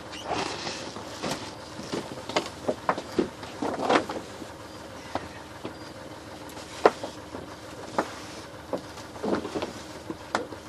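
Irregular knocks, clunks and clicks of mooring lines and deck gear being handled on a sailing yacht's deck and cockpit, about a dozen short hits over a steady low background.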